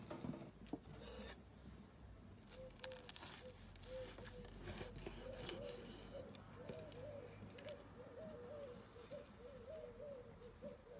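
Faint knife strokes slicing through crusted roasted meat on a wooden cutting board: soft crunches and scrapes. A bird calls over and over in the background from about two seconds in.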